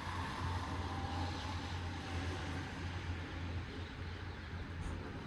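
Steady light rain falling, an even hiss of drops over a constant low rumble. A faint high tone fades out early on.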